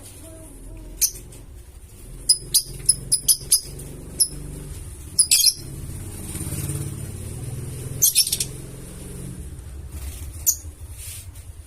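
Lovebird chirping: short, shrill calls, with a quick run of about six some two seconds in and single calls or pairs scattered after, over a steady low rumble.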